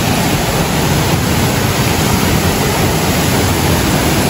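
Waterfall plunging into its pool, a loud, steady rush of falling water close by.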